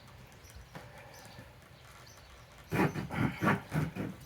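Victorinox RangerGrip pocket-knife saw blade cutting a hardwood branch: after a near-quiet start, about five quick rasping strokes, roughly three or four a second, near the end.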